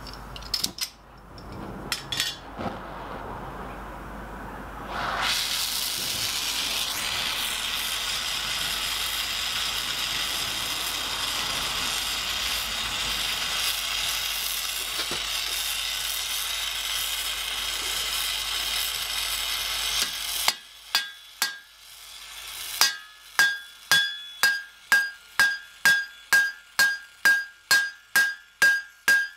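A few clicks, then a small oxy-acetylene torch comes on with a sudden, steady hiss, heating a steel rivet head. The hiss cuts off and gives way to sharp, ringing metal-on-metal strikes at about two a second.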